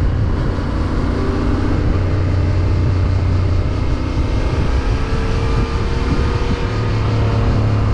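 Yamaha Ténéré 700's parallel-twin engine running steadily under way, with a steady rush of wind.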